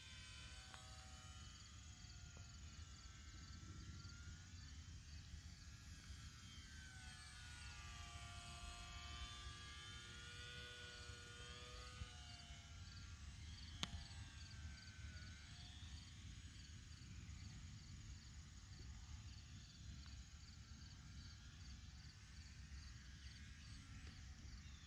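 Faint whine of a radio-controlled model airplane's motor and propeller in flight, its pitch falling and rising as it passes back and forth. Insects chirp steadily in the background at a little under two chirps a second.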